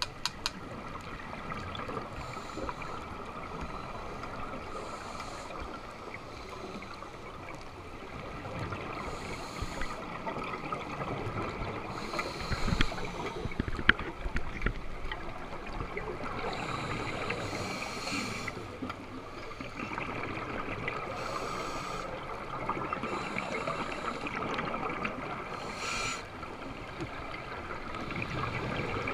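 Underwater sound of a scuba dive picked up through a GoPro's waterproof housing: a steady hiss with bubbling bursts of exhaled air from a diver's regulator every few seconds, and a few sharp clicks.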